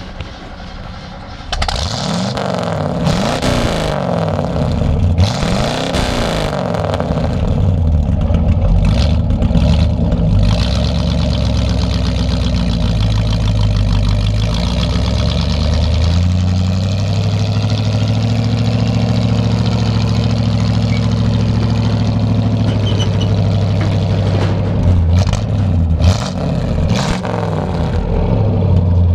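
Exhaust of a 1976 Ford F-250 camper special, heard at its dual tailpipes. The engine comes to life about a second and a half in and is revved up and back down twice. It then settles into a steady idle, with a couple of brief throttle blips near the end.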